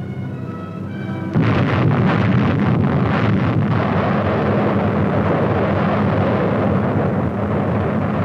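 A few held notes of music, then about a second and a half in an atomic bomb explosion hits suddenly and goes on as a long, loud rumble with crackling that slowly fades.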